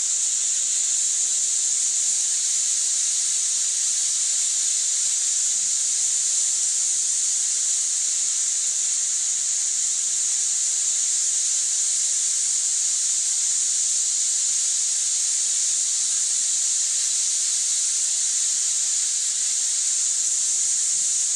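A steady high-pitched hiss, unchanging throughout.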